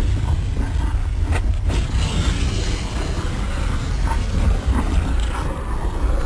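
Volcano erupting and throwing up glowing lava: a steady, deep rumble with a rushing roar over it.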